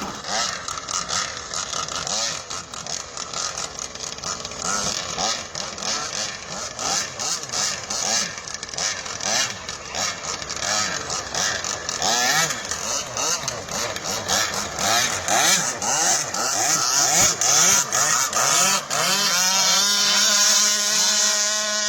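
Two-cylinder two-stroke engine of a radio-controlled long-tail boat running and revving, its pitch rising and falling again and again. For the last few seconds it holds one steady note.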